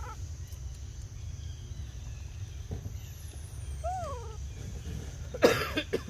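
A baby macaque gives a short arched coo call about four seconds in. A little before the end comes a short, loud, noisy burst, the loudest sound, over a steady low rumble.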